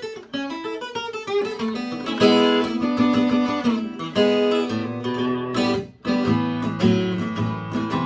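Eastman E20OOSS acoustic guitar being played: single plucked notes at first, then full strummed chords from about two seconds in. There is a short break just before six seconds, then the chords carry on.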